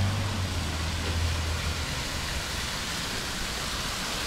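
Steady rushing noise of wind on the microphone and city traffic while riding a bicycle, with a low engine hum from a nearby vehicle that fades out about a second and a half in.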